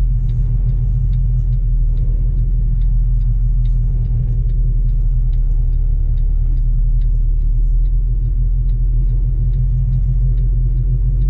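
Semi truck's diesel engine running at low speed, heard from inside the cab as a steady low rumble. A faint ticking sounds about twice a second.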